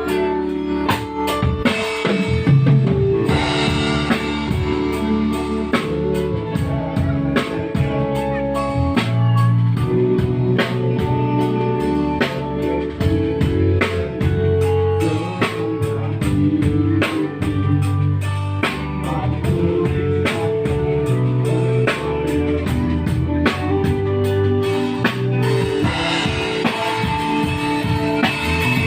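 Music with a drum kit and guitar, played over a sound system at a sound check. The drums keep a steady beat of regular hits over sustained low notes.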